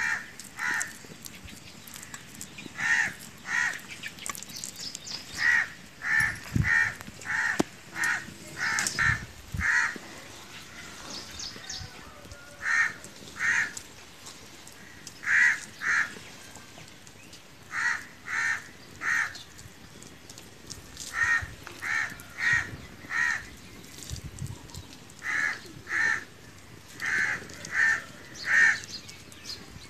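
A bird calling over and over: short calls in runs of two to four, repeating every few seconds.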